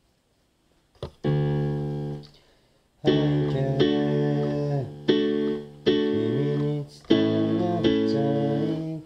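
Electronic keyboard playing chords: a click about a second in, one held chord, a brief pause, then from about three seconds in a run of chords struck roughly once a second.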